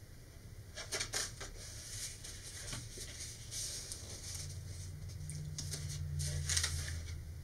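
Stiff embossed paper wrap rustling and crinkling in short bursts as hands wrap it around a paper model rocket transition, lift its tacky edge back off and press it down again. A low steady hum comes in about four seconds in.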